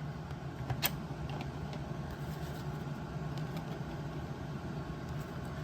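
A steady low background hum, with one faint sharp click a little under a second in.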